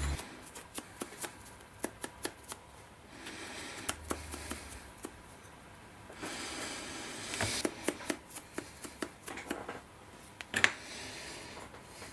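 Scattered light clicks and taps with soft rustling as a small plastic model tripod is handled, turned over and set back down on a cutting mat. One sharper click stands out late on.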